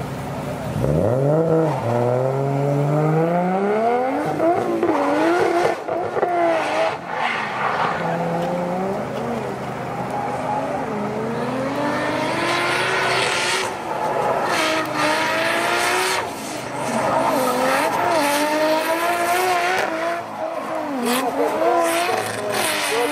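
Drift car launching about a second in, its engine revving sharply up and then rising and falling repeatedly as the throttle is worked through a slide. In the second half the engine is joined by screeching tyres as the car drifts, pouring tyre smoke.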